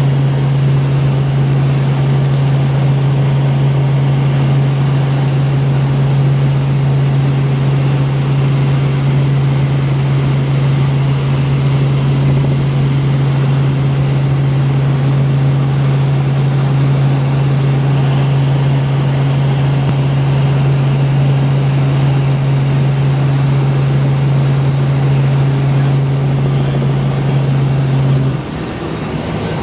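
Helicopter in flight heard from inside the cabin: a steady, loud drone of rotor and engine with a strong low hum and rushing wind noise. Near the end the low hum stops abruptly and the sound drops in level.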